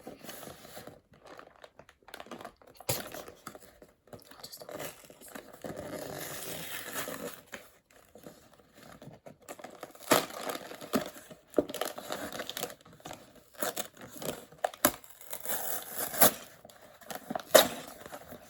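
A Lego set's cardboard box being torn open and unpacked: tearing and crinkling of cardboard and plastic bags, with scattered sharp clicks and knocks.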